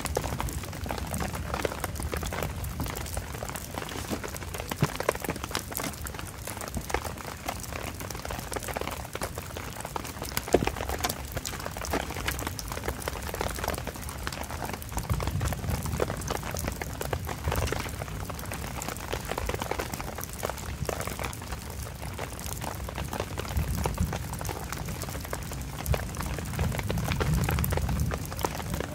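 Heavy rain drumming on a tarp shelter, a dense patter of drops. A low rumble swells up twice, about halfway through and again near the end.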